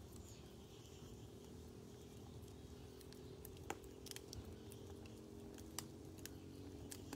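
Wood fire crackling in a fire bowl: faint, scattered sharp pops, more of them in the second half, over a low steady rumble.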